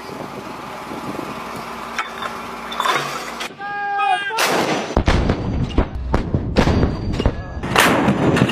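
Howitzer firing: after several seconds of steady background noise, a heavy blast about halfway through is followed by a long, loud rolling rumble with repeated sharp cracks.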